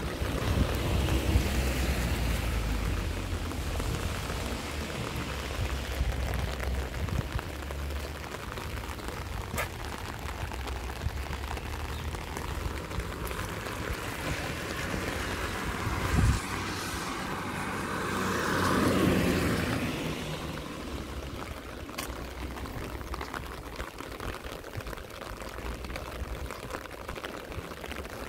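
Steady rain falling on a wet street and pavement. A low rumble sits under it in the first few seconds, a brief thump comes a little past halfway, and a vehicle swells past on the wet road about two-thirds of the way through, then fades.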